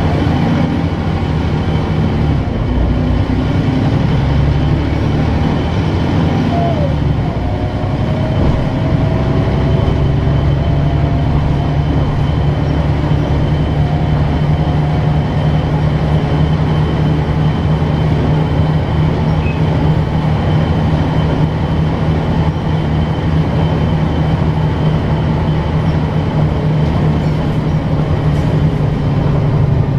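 City bus diesel engine and drivetrain running as the bus drives, heard inside the passenger cabin: a steady low drone, with a faint slowly rising whine about a quarter of the way in.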